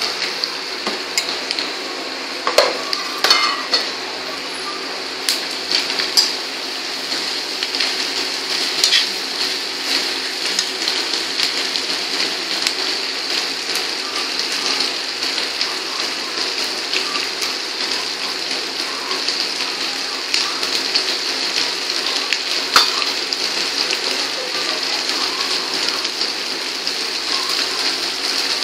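Onions and green capsicum sizzling steadily as they stir-fry in hot oil in a steel wok, with a steel spoon now and then clinking and scraping against the pan as they are stirred.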